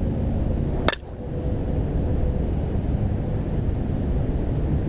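A single sharp crack of a softball bat hitting a ball, about a second in, over a steady low rumble of wind on the microphone.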